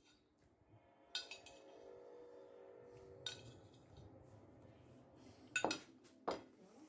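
A metal fork clinking against a ceramic plate a few times, then two louder knocks near the end as the plate is set down on a wooden table.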